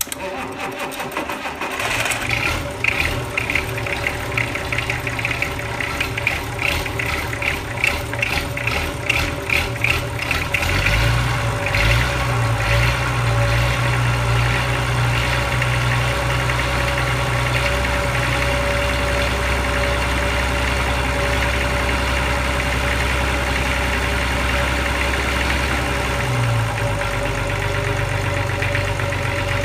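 Perkins P6 six-cylinder diesel engine being cold-started. It turns over with an uneven rhythmic beat, then about ten seconds in picks up and settles into a steady idle.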